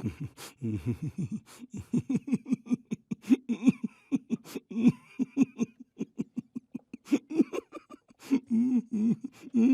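A person laughing with the mouth closed: a long run of short, muffled laugh pulses pushed out through the nose, several a second.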